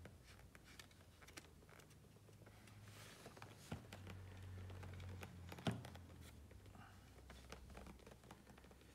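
Utility knife trimming the edge of a leather insole tacked to a wooden last: faint small cuts, scrapes and clicks of the blade on the leather, with one sharper knock about two-thirds of the way through, over a faint low hum.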